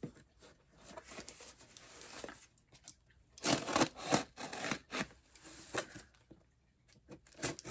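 Packaging being handled, rustling and crinkling in uneven bursts with light clicks and knocks, loudest about halfway through.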